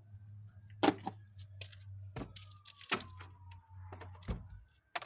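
Handling noise: several sharp clicks and knocks, about four loud ones spread through, over a steady low hum.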